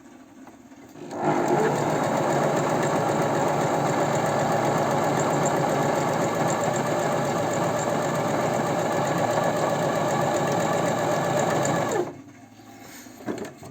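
Janome Sewist 509 domestic electric sewing machine sewing steadily for about ten seconds, starting about a second in and stopping abruptly near the end. It is a test seam to check the upper and lower thread tension after repair.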